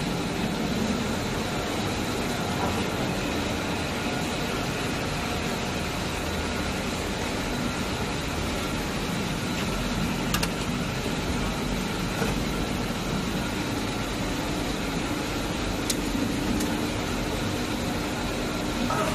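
Oriented PVC pipe extrusion line running: a steady machine hum with a faint high whine, and two brief clicks, about ten and sixteen seconds in.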